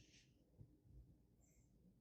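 Near silence: faint low room tone, with a hiss trailing off at the start and a tiny faint high click about one and a half seconds in.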